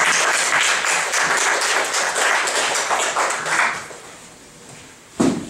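Audience applauding, the clapping dying away a little under four seconds in. About five seconds in comes a single short thump.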